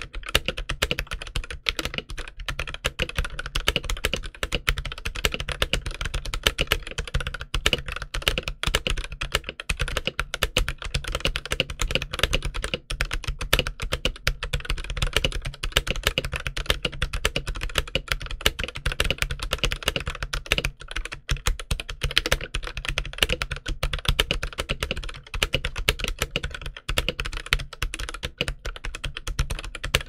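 Fast, continuous typing on a stock Akko 5087B Plus mechanical keyboard with Akko CS Jelly Black switches and PBT keycaps: a steady stream of overlapping keystroke clacks with a low thud under each. The reviewer says this keyboard sounds like a bell out of the box.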